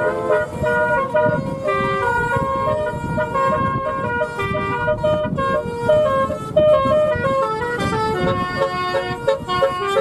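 Telolet horn, a set of multi-tone electric horns, playing a quick tune of short notes, often several at once, with a low rumble of the passing vehicles underneath.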